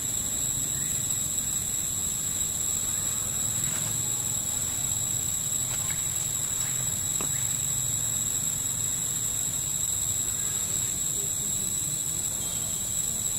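Steady high-pitched drone of insects, unbroken throughout, over a low steady rumble, with a few faint ticks.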